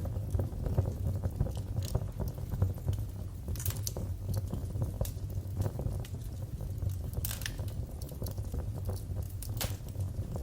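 Wood fire crackling in a fireplace: scattered sharp pops and snaps over a steady low rumble of the flames, with a few louder snaps about three and a half, seven and ten seconds in.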